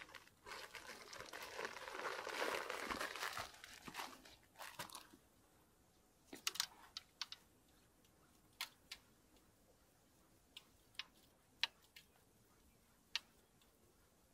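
Close rustling and crinkling for the first four or five seconds, then a scattering of single sharp clicks.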